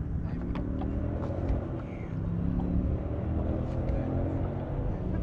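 A boat motor running steadily: a low hum that grows louder about two seconds in, with a few light knocks on the boat.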